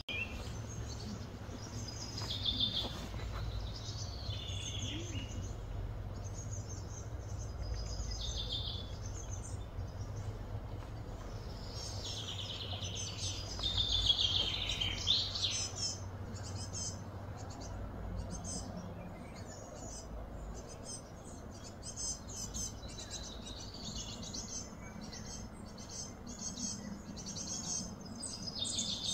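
Wild birds singing and chirping in repeated short phrases, loudest about halfway through, over a steady low background hum.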